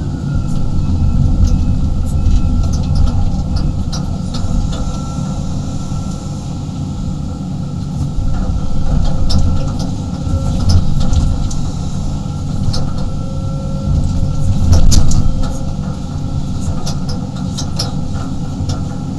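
35-ton excavator's diesel engine and hydraulics running under load, heard from inside the cab, with scattered clanks and scrapes as the bucket digs through dirt and rocks. It peaks about fifteen seconds in.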